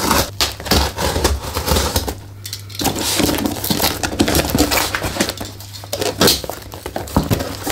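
Packing tape on a cardboard box being slit with a small metal tool and pulled away, with crackling and scraping tape and cardboard in irregular bursts and a quieter pause about two seconds in.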